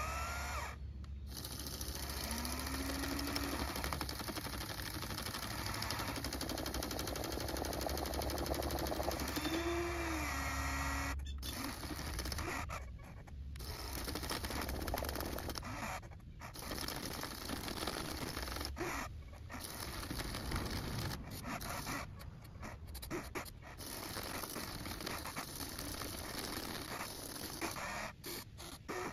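Huina 1594 RC excavator's electric motors and gears whining as it works its arm and bucket into a dirt pile, with dirt scraping. The noise stops briefly several times and picks up again.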